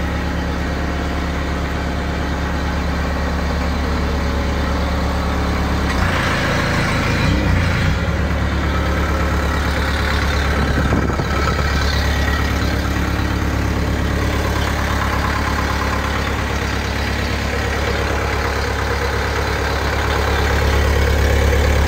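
The skid steer loader's Isuzu diesel engine idling steadily, with a brief change in pitch about six seconds in.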